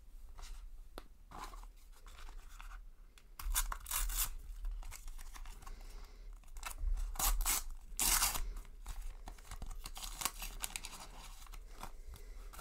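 Panini sticker packet torn open by hand: a run of short rips and crinkles of the paper wrapper, with the loudest rips a few seconds in and again about two-thirds of the way through.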